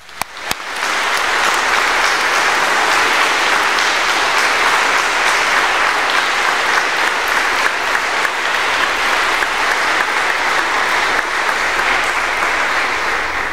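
Congregation applauding: a few scattered claps at first, filling out within a second into steady applause from a large crowd, which dies away near the end.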